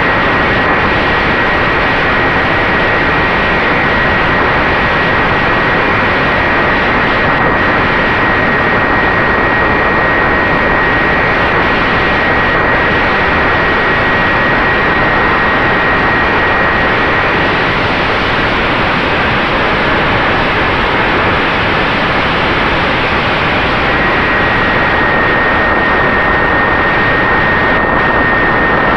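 Brushless electric motor and 8x4 propeller of an FX-61 Phantom flying wing running steadily in flight: an unchanging high whine over a loud rush of air.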